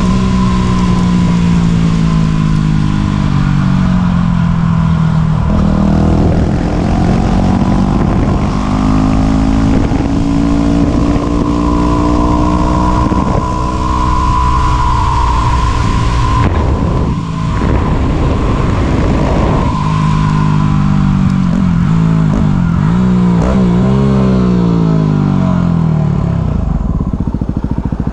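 Yamaha WR250's single-cylinder four-stroke engine being ridden, its pitch climbing and falling again and again as the throttle opens and closes. There is a brief drop in level about two-thirds of the way through.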